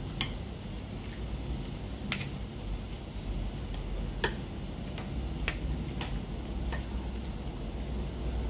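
Eating sounds at a table with plastic cutlery: about a dozen sharp, irregular clicks from a plastic spoon on a disposable plate and from chewing, over a steady low hum.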